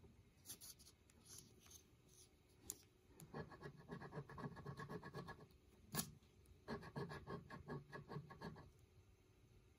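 Fingernail scratching the latex coating off a scratch-off lottery ticket, faint, in two spells of quick strokes, the first about three seconds in and the second about seven seconds in, with a single sharp tick between them.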